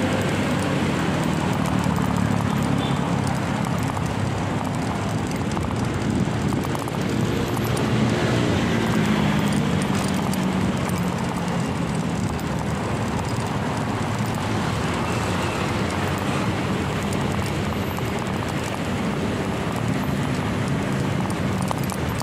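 Steady rumbling noise of riding a bicycle: wind buffeting the handlebar-mounted phone microphone, with tyre and road noise from the paved bike lane.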